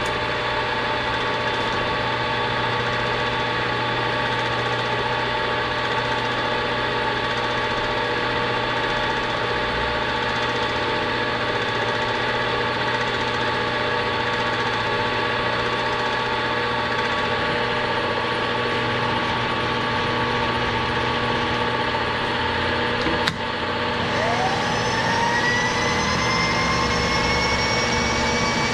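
Milling machine running steadily with its spindle turning, a constant motor hum. About 23 seconds in there is a sharp click, then a motor whine that rises in pitch as it spins up.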